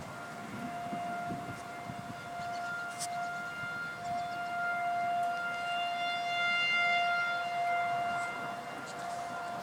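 Outdoor tornado warning siren sounding a steady, unwavering tone, warning of severe weather. It swells louder about halfway through and eases off again.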